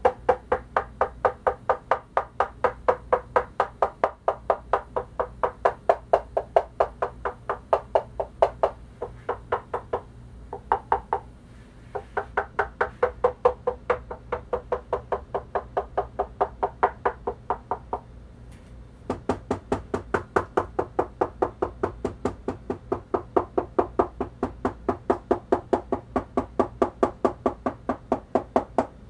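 Knuckles rapping rapidly on the bodies of two Sony PS-X555ES direct-drive turntables, a damping comparison: first the one stiffened with a bolted-on MDF supplemental plinth, then, after a short break about eighteen seconds in, the stock one with its bare bulk-moulding-compound plinth. Sharp knocks come about three to four a second, each with a short ring, with another brief pause about nine seconds in.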